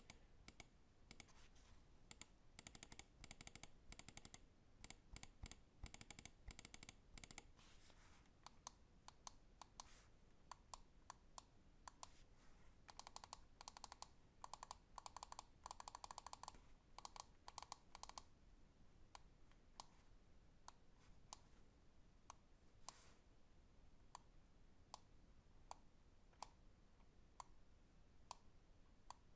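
Lamzu Maya X 8K gaming mouse clicking: quick runs of clicks in two stretches, and spaced single clicks in between and toward the end.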